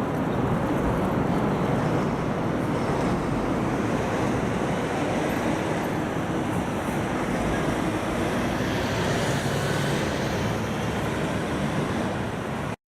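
Steady road traffic noise at a busy city intersection, an even rumble and hiss with no crossing bell. It breaks off abruptly near the end.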